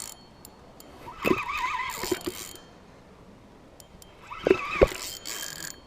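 Saltwater fishing reel working against a hooked sturgeon: two bursts of wavering whine and hiss with a few sharp clicks, about a second in and again near the end.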